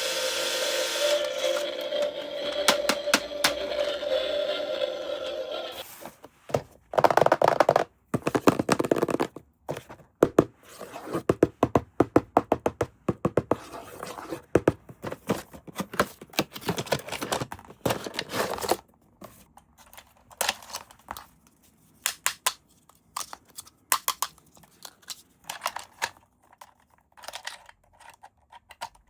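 Toy packaging and plastic parts being handled: a dense run of clicks, knocks and scraping, thinning out to scattered clicks in the second half. It begins with a steady pitched tone, which stops about six seconds in.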